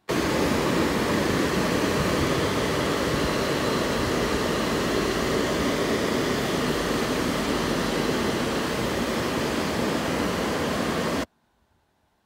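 WashTec Combiwash rollover car wash gantry running over a car, a steady rushing of spray or drying air that starts abruptly and cuts off suddenly about eleven seconds in.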